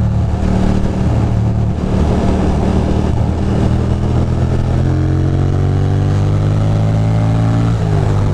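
A 2006 Ducati Monster 620's air-cooled L-twin engine running under way. Its pitch climbs slowly in the second half as the bike accelerates, drops briefly near the end, then holds steady.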